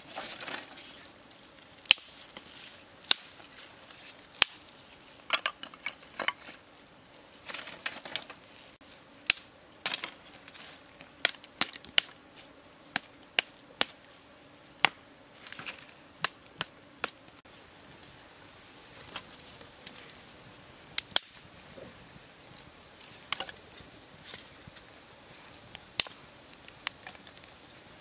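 Dry sticks being snapped and handled by hand: many sharp, irregular cracks, fewer in the second half, with quieter rustling of sticks and leaf litter between.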